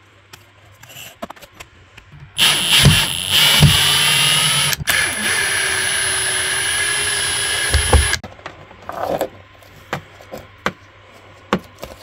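Cordless drill running at a steady high whine in two long spells, about six seconds in all, with a momentary stop between them. Small handling knocks come before and after.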